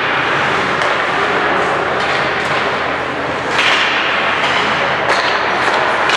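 Ice hockey play in an arena: skates scraping the ice and sticks and puck clattering, with several sharp knocks such as puck or bodies against the boards.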